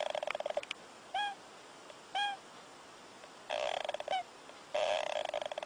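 A small animal snoring in its sleep: rattling bursts of rapid pulses lasting about a second each, with short, high, squeaky chirps between them, about 1 and 2 seconds in and again around 4 seconds.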